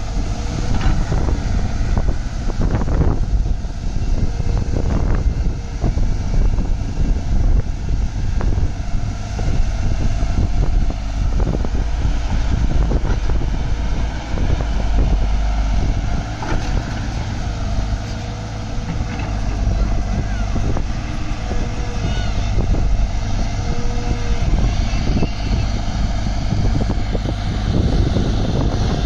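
JCB tracked excavator's diesel engine running steadily under load as it digs and swings, with a few brief knocks.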